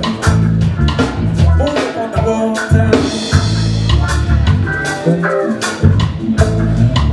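Live reggae band playing: a heavy bass line under drum-kit hits, with electric guitar and keyboard, and a cymbal wash about three seconds in.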